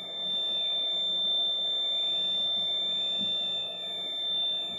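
Ravel fire alarm system sounding: a steady high-pitched buzzer tone together with a siren that slowly wails up and down, about one rise and fall every two and a half seconds. The alarm is going off from a retest of the system.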